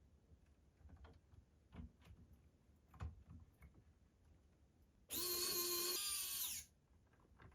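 Light clicks and taps of small parts being handled, then about five seconds in a small electric power driver runs for about a second and a half with a whining motor before stopping abruptly.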